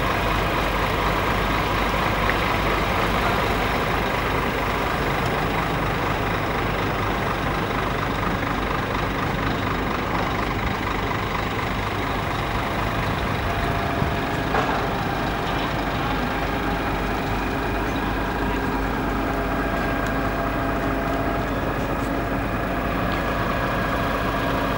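Heavy diesel truck engines idling, a steady drone with several held tones.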